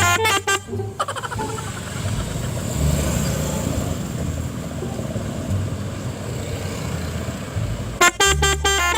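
Loud multi-tone truck horn (a "Fuso" horn) fitted to a motorbike, sounding a quick run of stepped notes, then traffic noise with engine rumble. The horn starts again near the end.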